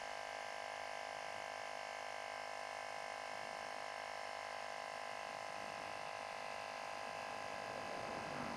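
Microstart 12 V portable tire inflator running steadily, a small electric compressor's even buzzing hum with no change in pitch, while it pumps up a motorcycle tire. It makes a cute little noise, not aggravatingly loud.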